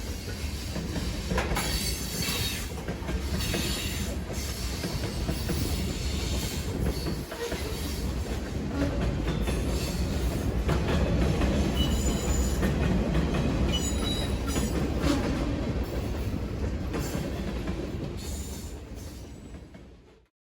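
Sound effect of a full-size train rolling by: a steady rumble of railcars with wheels clicking over rail joints and a few short wheel squeals. It fades up at the start and fades out near the end.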